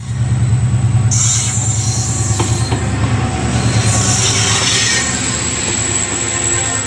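Train moving through a railway station: a steady, loud low rumble of the locomotive engine, with bursts of hissing and squealing from the wheels about a second in and again near the middle.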